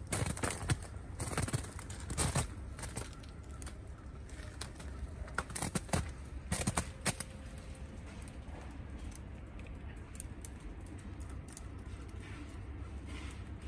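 Footsteps crunching on frozen, icy snow: a run of sharp, irregular crunches in the first half, then only a few faint crackles over a low steady rumble.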